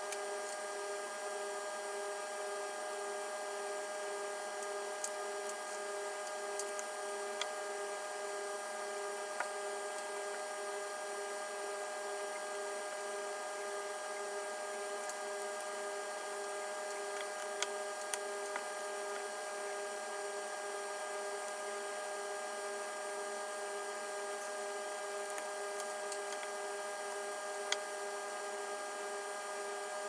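Steady electrical hum made of several unchanging tones, with a few faint, scattered clicks and taps as small laptop parts are handled and fitted.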